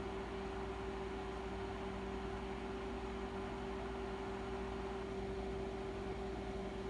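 Microwave oven running with a steady, unchanging hum while a bag of popcorn heats inside, before any kernels have started to pop.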